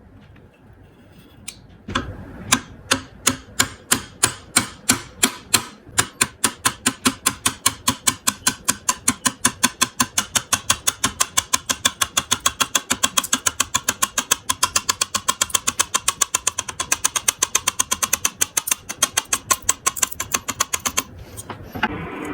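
A long run of sharp, evenly spaced clicks or taps, about two a second at first and quickening to roughly five a second, stopping abruptly about a second before the end.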